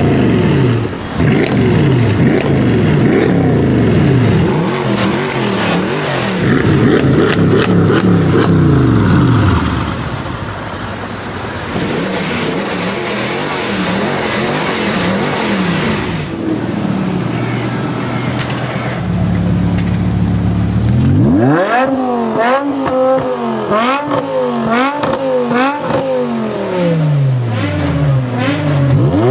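High-performance car engines accelerating hard, the revs climbing and dropping again and again. Near the end an engine idles for a few seconds, then is revved repeatedly, its pitch rising and falling about once a second.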